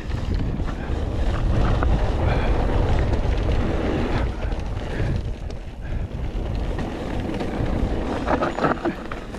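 Mountain bike being ridden over a rough trail: steady tyre noise with frequent knocks and rattles from the bike, and wind on the microphone.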